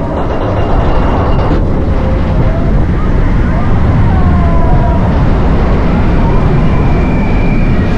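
Expedition Everest roller coaster train running along its track: a loud, steady rumble and rush with no break, with a few faint wavering voices above it.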